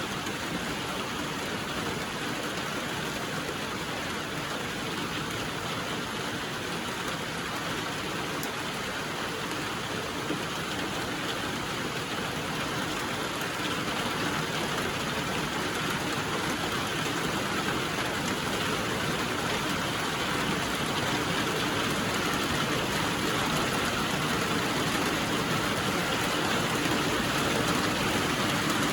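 Steady rainfall, an even hiss of many drops with no distinct patter, growing slightly louder toward the end.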